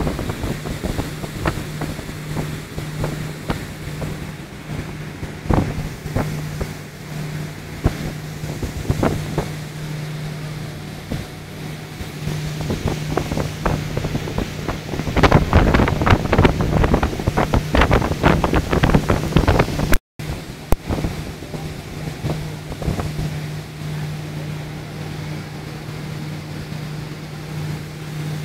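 Tour boat's motor running at a steady pitch, with wind buffeting the microphone in gusts that are heaviest just past the middle. The sound drops out for a split second about twenty seconds in.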